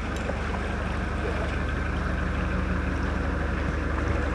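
Narrowboat engine idling steadily in a lock, a low even rumble.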